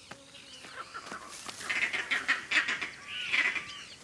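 A rapid series of animal calls in two bunches, the first starting about a second in and the second near the end.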